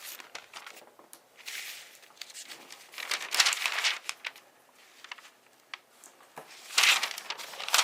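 Paper rustling and crinkling in irregular bursts as a folded printed instruction sheet is handled and unfolded, loudest about three and a half seconds in and again near the end.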